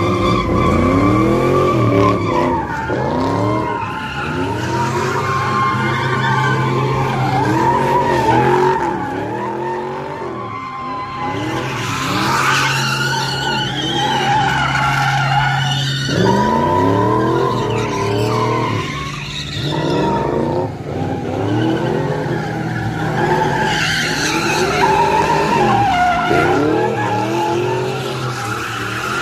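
Car spinning donuts, its engine revving up and down in quick repeated surges while the rear tyres squeal without letup.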